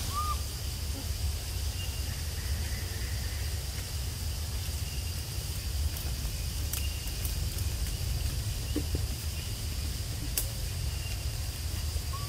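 Forest ambience: a steady low rumble under a steady high drone of insects, with a couple of sharp clicks in the second half. A short squeaky chirp sounds right at the start and again at the very end.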